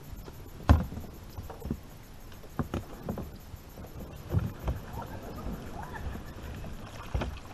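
Irregular hollow knocks and thumps of a plastic kayak hull and paddle as someone boards a kayak in shallow boggy water, the loudest about a second in, over light rustling and sloshing.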